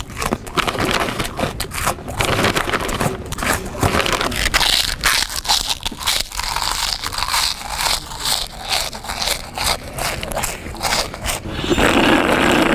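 A person crunching and chewing a crunchy snack loudly, with many short crisp crunches and crackles, then a loud drawn-out vocal noise near the end.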